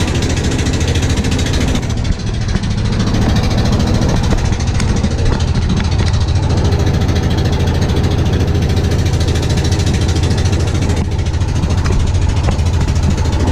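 Small wooden fishing boat's engine running steadily under way, a constant low drone.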